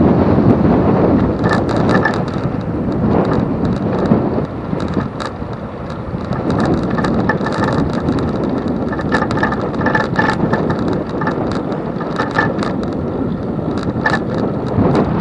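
Wind buffeting the microphone of a bicycle-mounted camera while riding, a steady low rumble with scattered clicks and rattles throughout.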